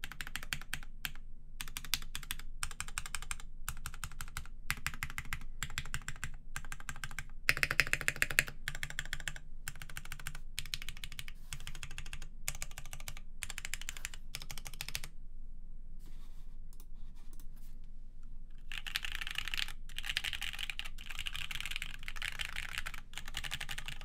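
Typing on a Geonworks Frog TKL mechanical keyboard with lubed Cherry MX Black Hyperglide linear switches in an aluminium plate, under XMI Cadet keycaps: runs of keystrokes broken by short pauses. A few louder strokes come about eight seconds in, only light scattered taps a little past the middle, then a fast, dense run near the end.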